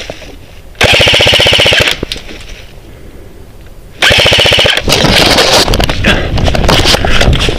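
Airsoft gun firing two rapid full-auto bursts, each about a second long and about three seconds apart. After the second burst comes a loud, uneven rustle with wind noise on the microphone.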